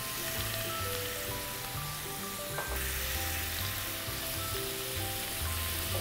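A pan of oil and stock with chopped onion, garlic and dried chillies sizzling steadily on the hob, stirred with a wooden spatula. Soft background music plays underneath.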